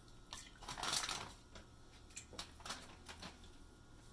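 Raw duck feet dropped by hand into water in a stainless steel stockpot: a splash about a second in, then a few short light clicks and plops.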